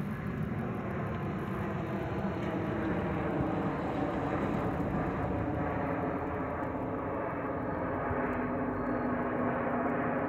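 Jet engines of an Airbus A320neo (Pratt & Whitney PW1100G geared turbofans) running as the airliner flies past, a steady rumble with a low hum that grows stronger about eight seconds in.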